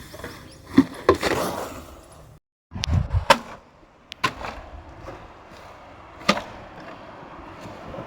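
A handful of sharp knocks and clacks, spaced irregularly, over rough background noise, broken by a moment of total silence a little before the middle.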